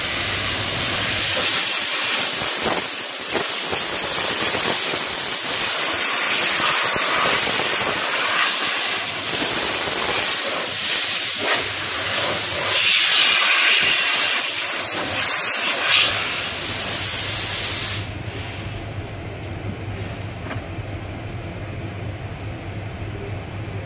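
Compressed air hissing loudly and steadily from a pneumatic tool in a body shop, cutting off abruptly about 18 seconds in and leaving a lower steady hum.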